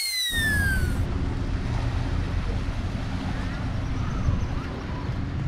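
Wind buffeting the microphone at the seashore, a steady low rumble. Over the first second a falling whistle-like tone, the edit's transition sound effect, slides down and fades out.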